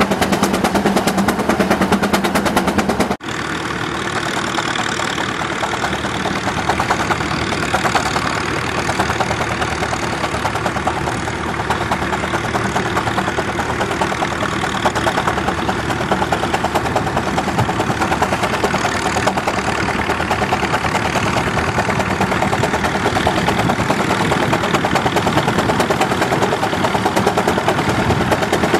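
Steam traction engines pulling plows under load: a steady engine sound with a fast, even beat. It changes abruptly about three seconds in, where one engine gives way to another.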